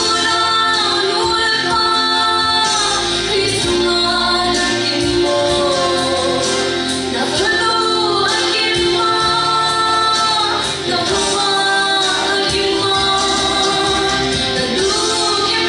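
A woman sings into a handheld microphone over instrumental accompaniment, holding long notes, amplified in a large hall.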